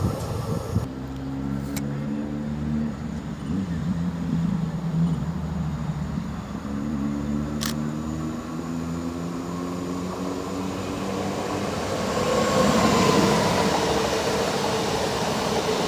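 EN79 electric multiple unit at the platform, its traction drive giving a layered whine of several tones that step up and down in pitch. From about twelve seconds in, wheel and running noise grows with a thin squealing tone above it. There is one sharp click midway.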